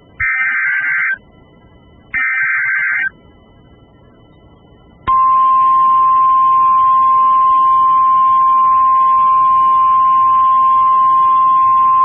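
Emergency Alert System SAME header: two bursts of screeching two-pitch digital data, about a second each and a second apart. About five seconds in, the steady single-pitch weather-radio warning alarm tone starts and holds, signalling that a weather warning follows.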